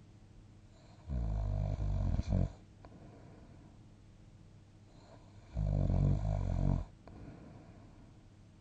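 A sleeper snoring: two loud, rumbling snores, each a little over a second long and about four seconds apart, with only faint breathing in between.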